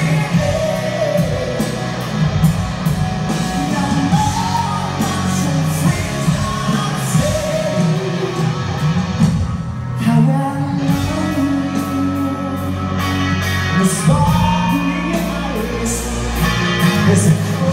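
Live rock band playing a power ballad: a sung lead vocal over electric guitar, bass and drums, heard from the audience in a large hall. The band drops back briefly about ten seconds in.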